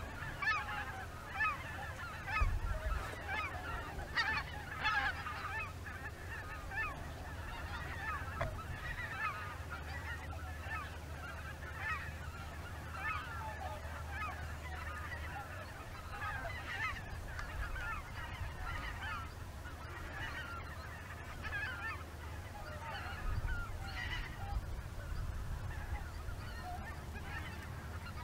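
A flock of greater white-fronted geese calling in flight, many short calls overlapping, busiest in the first few seconds and a little sparser afterwards. A low steady rumble lies underneath.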